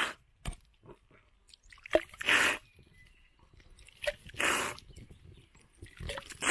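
Urine being snorted up the nose from a cupped hand: a series of sharp, wet sniffs about two seconds apart, with small drips between them.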